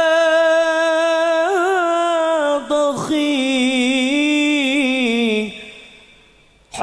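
A single male voice singing sholawat unaccompanied, drawing out a phrase in two long held notes with melismatic turns. The second note wavers and fades away about five and a half seconds in.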